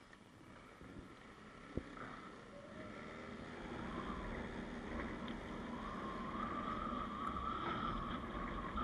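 Car pulling away and gaining speed, heard from inside the cabin: low engine and road noise that grows steadily louder. There is a single click about two seconds in and a faint steady whine in the second half.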